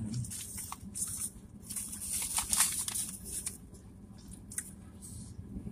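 Paper sandwich wrapper crinkling and rustling as it is handled, busiest in the first three seconds or so, then thinning out to a few scattered crackles.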